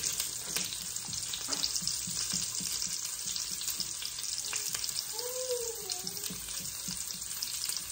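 Beaten eggs frying in butter in a nonstick pan on high heat: a steady sizzle, with a spatula scraping and tapping the pan as the eggs are stirred into scrambled eggs. A brief rising-then-falling tone sounds about five seconds in.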